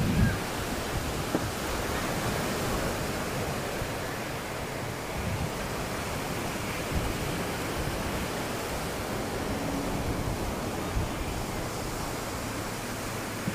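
Steady, even rushing of sea surf and wind, with a few low wind gusts on the microphone right at the start.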